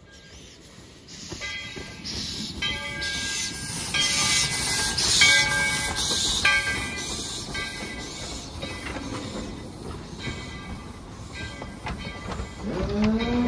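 ET&WNC No. 12, a 4-6-0 steam locomotive, chuffing as it pulls away with its train. The exhaust beats are steady at about one and a half a second, with steam hissing from the cylinder cocks.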